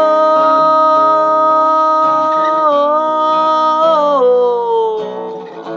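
A man's singing voice holds one long, steady note over acoustic guitar, then slides down in pitch about four seconds in.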